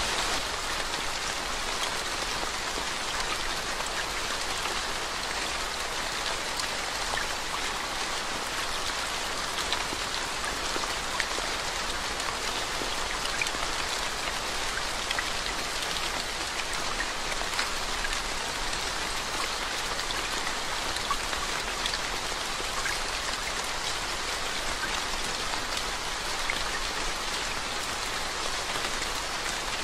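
Steady rain falling onto a puddled lane, an even hiss with scattered single drops ticking through it.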